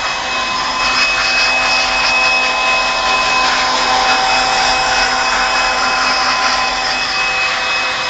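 Handheld electric blower running steadily, blow-drying a dog's wet coat: a constant motor whine over a rush of air.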